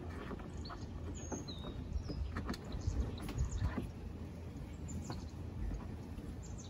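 Scattered clicks and light knocks of a sail canoe's rigging, lines and blocks, as the sail is lowered, over a low rumble. A bird chirps briefly about a second and a half in.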